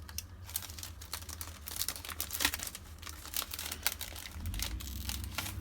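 Packaging crinkling and rustling in the hands as a pack of paper ephemera is opened and looked through, with scattered sharp crackles.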